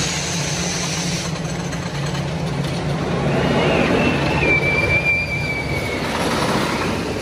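GCI roller coaster train running past on its track: a rolling rumble that swells as it passes, with a high wheel squeal from about three to six seconds in.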